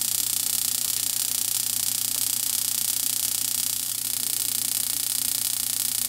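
Spark igniter of a Honeywell S86 intermittent pilot ignition control sparking across the gap at the pilot burner: a steady, rapid stream of snapping sparks. No pilot flame lights and the spark keeps going, as happens when there is no gas supply.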